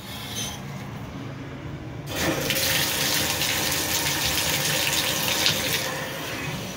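Shower water running: it comes on suddenly about two seconds in and keeps up a steady rushing hiss.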